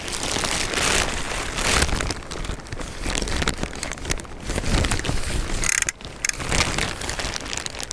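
Noisy rustling and buffeting on the camera's microphone, rising and falling in gusts, as the angler handles the float rod and landing net while playing a hooked crucian carp.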